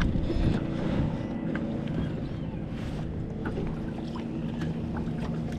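Steady low hum and rumble from the boat, with a few faint short clicks and ticks scattered through it.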